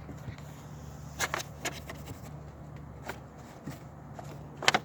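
A few light, scattered clicks and taps of handling, the loudest cluster near the end, over a steady low hum.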